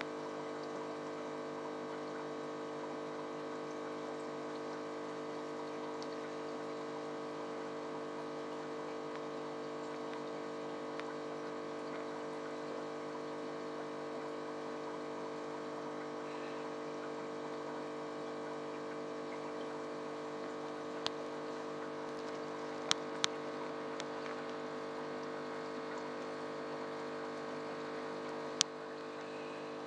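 Aquarium pump running with a steady, even hum. Four sharp clicks come in the last third, the last one just before the end.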